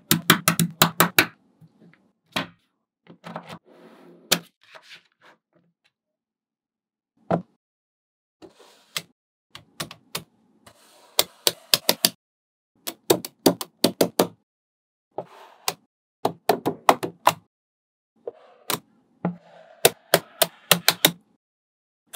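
Small neodymium magnet balls clicking sharply against each other in quick runs as strips and blocks of them are snapped into place, with short pauses between runs.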